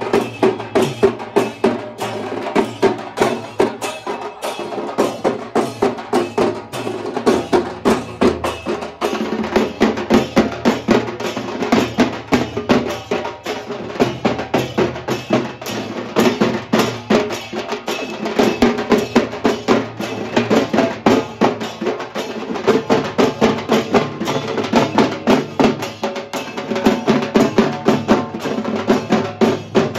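Large barrel drums beaten in a fast, steady, driving rhythm for the deity's dance procession.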